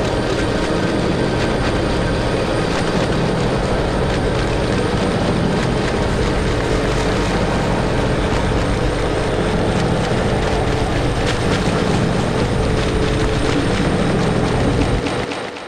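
Experimental noise composition: a dense, steady wall of noise with a low drone and a thin high whine above it, which drops away about a second before the end and fades out.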